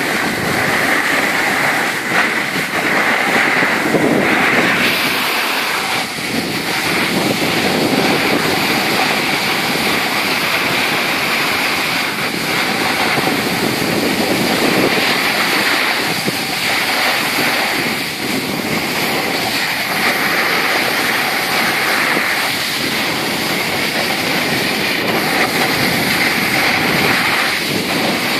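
Continuous rush of sliding downhill on a groomed ski slope: edges scraping and hissing over packed snow, with wind blowing across the microphone. The rush swells and eases every few seconds.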